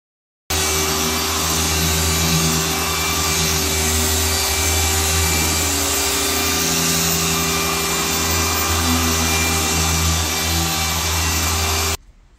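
Machine polisher with a foam pad running steadily on black car paint, working polish into the clear coat to remove holograms. The motor starts abruptly about half a second in and cuts off abruptly just before the end.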